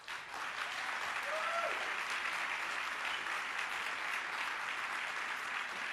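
Audience clapping steadily, with a single short call from a voice in the crowd about a second and a half in.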